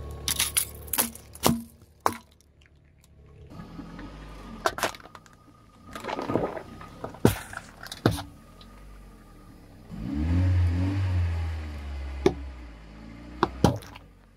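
A car tyre rolling over and crushing objects: a run of sharp cracks and snaps, with a low rumble from the car from about two-thirds of the way in for a couple of seconds.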